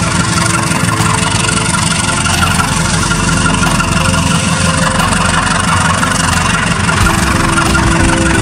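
Diesel-electric locomotive engine running steadily at idle, its note changing near the end.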